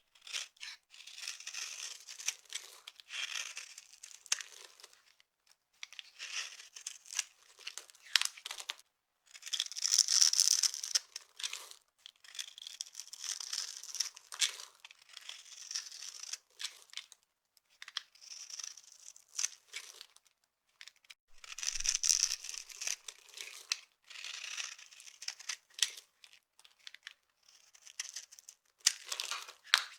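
Dry soap being crushed: a series of crisp crunching, crackling bursts with brief pauses between them.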